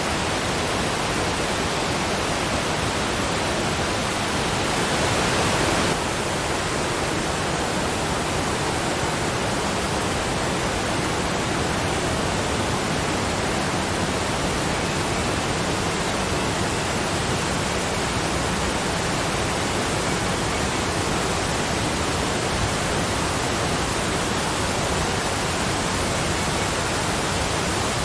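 Waterfall: a steady, even rush of falling water, a little louder for about a second and a half some five seconds in before dropping back suddenly.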